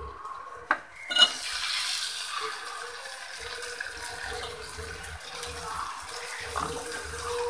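Chopped tomatoes hitting hot oil in an aluminium pot and sizzling steadily. Two sharp knocks come about a second in, just before the sizzling starts.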